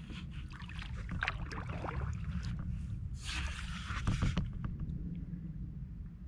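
Kayak paddle strokes: water splashing and dripping off the paddle blade, with the loudest splash about three seconds in, then easing off. A steady low rumble lies underneath.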